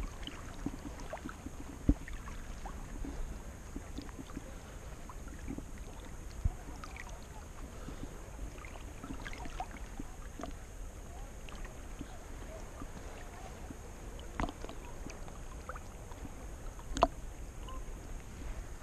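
Small ripples lapping and sloshing against a waterproof camera held at the water's surface. Scattered small ticks run throughout, with a few sharp knocks, the loudest about two seconds in and near the end.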